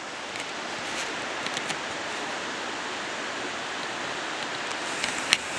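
Steady rushing noise, with a few faint clicks and one sharper click near the end.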